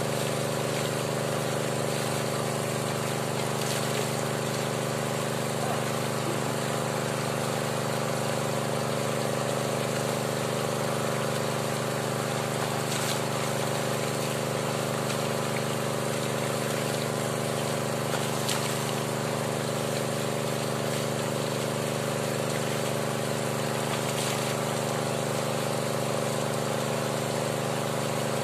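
Small engine-driven water pump running steadily at one speed, pushing water through a hose down the drill pipe of a hand-turned well bore. A few faint clicks sound over it.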